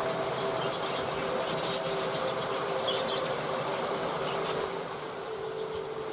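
Steady rush of a waterfall, with a few long held low notes of calm background music.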